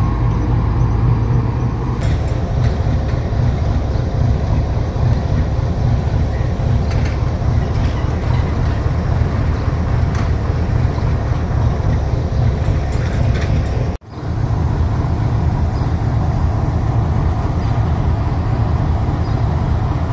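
Pakistan Railways GEU40 diesel-electric locomotive's engine running close by: a loud, steady low rumble, broken off abruptly about 14 seconds in and then continuing.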